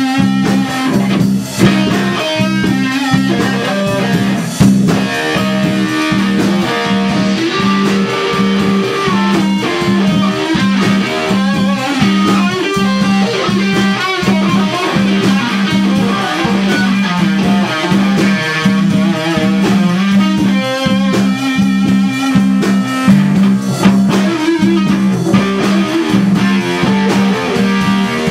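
Live rock band playing: a Stratocaster-style electric guitar plays a busy lead line over a repeating low riff, with drums and bass, loud and continuous.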